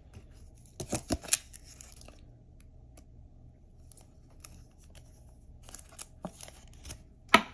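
A trading card being slid into a soft plastic penny sleeve and then a rigid plastic toploader: scattered rustling scrapes and light clicks, bunched about a second in and again near the end, where the sharpest click comes.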